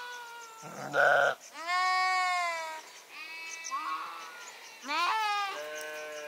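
A flock of sheep bleating: several calls of different pitches, some overlapping, with a short loud one about a second in and a long drawn-out one just after.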